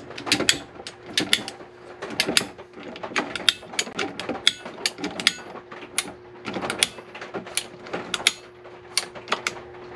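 Ratcheting plastic pipe cutter clicking as its handle is squeezed over and over, the blade working through a white plastic water supply line, about two to three clicks a second.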